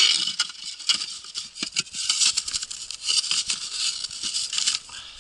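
A small snow shovel scooping packed snow out of a cargo sled: repeated crunching scrapes of the blade through the snow and against the sled's floor, with a few light knocks.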